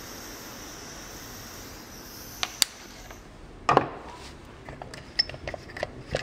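Steady hiss of a butane soldering iron's hot-air torch tip blowing on heat shrink tubing, cutting off about three seconds in. Two sharp clicks come just before it stops, then a knock and a few light handling clicks.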